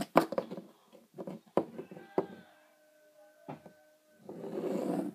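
Hard snap-on iPod case being handled and set on a wooden desk: a series of sharp clicks and knocks, with a faint steady tone for a moment in the middle and a soft rustling hiss near the end.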